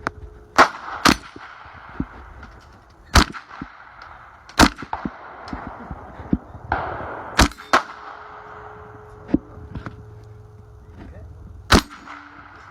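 Semi-automatic .22 LR shots from an HK MP5SD-style rifle whose silencer is a dummy, so the reports are unsuppressed sharp cracks. About seven shots are fired at an uneven pace, a couple in quick pairs, each followed by a short ringing echo.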